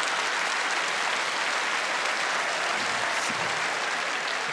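Theatre audience applauding and laughing, a dense, steady clatter of clapping that eases slightly toward the end.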